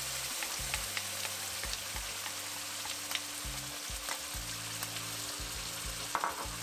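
Tomato-cashew puree sizzling as it is poured into a hot kadai of butter and spices and stirred with a wooden spoon. A steady frying hiss runs throughout, with a few light clicks.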